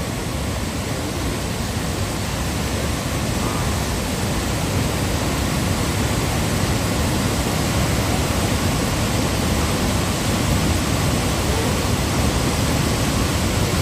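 A large, wide waterfall: a steady, unbroken rush of falling water that grows slightly louder over the stretch.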